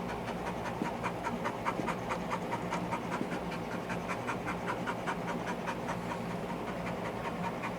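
A dog panting fast and evenly, about five or six breaths a second, over a faint steady low hum.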